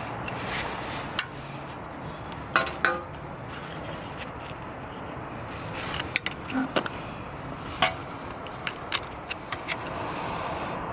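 Screwdriver scraping and clinking against metal as a broken, corroded ABS sensor is dug out of its bore in the wheel hub: scattered sharp clicks, with a brief ringing clink about two and a half seconds in.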